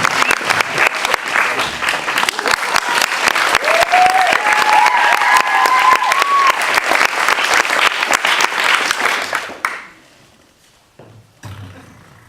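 Audience applauding, a dense steady clatter of clapping with a few rising cheers partway through, stopping abruptly about ten seconds in.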